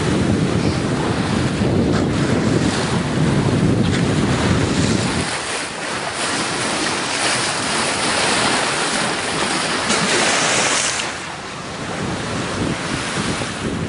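Wind buffeting the microphone over the steady rush and splash of sea water around a sailing ketch under way. The low wind rumble drops away about five seconds in.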